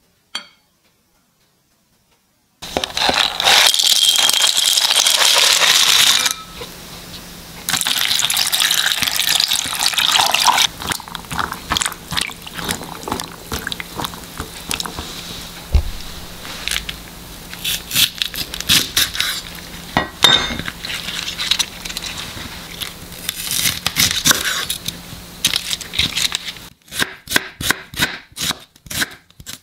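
Hands sloshing and squeezing rehydrated soy meat in a glass bowl of water, with louder splashy stretches in the first half. Near the end, a knife slicing onion on a wooden cutting board, about three strokes a second.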